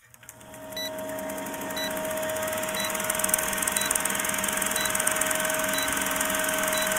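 Film-countdown leader sound effect: a film projector running with rapid, even clattering and a steady hum tone, with a short high beep once a second, seven beeps in all, as the numbers count down.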